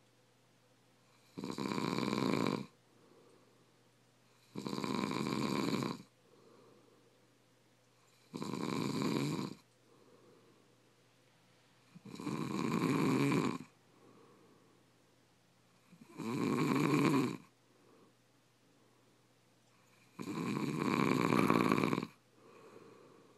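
A sleeper snoring, six loud snores about four seconds apart, each lasting a second or two, with faint breathing between.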